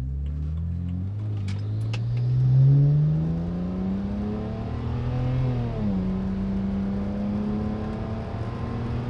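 BMW N54 3.0-litre twin-turbo straight-six pulling hard at about 75–80% throttle, heard from inside the cabin: the engine note climbs steadily, drops as the automatic upshifts about a second in and again around six seconds, then pulls on. It runs smoothly without misfiring.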